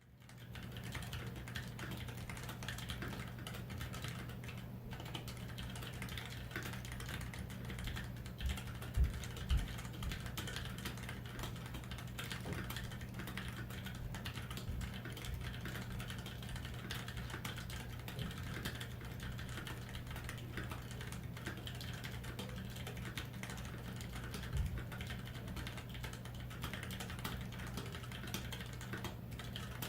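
Typing on an aluminium KBD661 mechanical keyboard with stock Kailh Pro Purple tactile switches and GMK keycaps: a continuous stream of keystrokes, with a few louder strokes about nine seconds in and again near 25 seconds, over a faint steady low hum.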